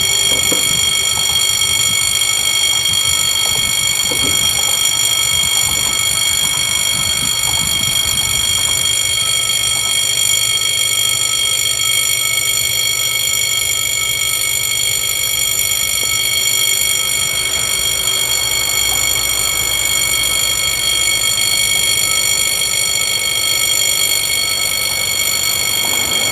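Electronic warning bells of an Italian level crossing, starting abruptly and ringing on as one steady, high metallic tone, over a low rumble. The crossing has been set off by a goods train running over its track detection while shunting.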